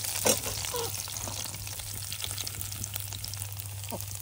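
Spices tempering in hot oil in a small kadai: a steady sizzle with a light crackle, and one sharp click about a third of a second in.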